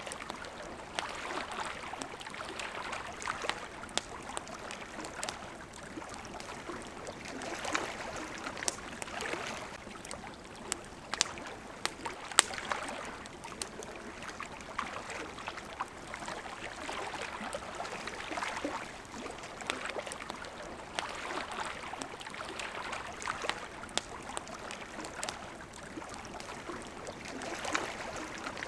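Small waves lapping at a riverside shore, the water sound swelling and easing every few seconds, with the sharp pops and crackles of a wood campfire scattered through; a few louder pops come near the middle.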